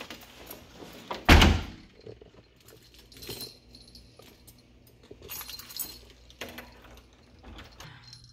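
A door shuts with a loud thud about a second in, followed by keys jangling and scattered small clicks and rustles.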